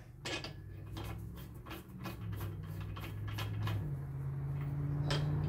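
Light, irregular metallic clicking of wheel lug nuts being threaded onto the studs and snugged by hand with a socket, over a low steady hum.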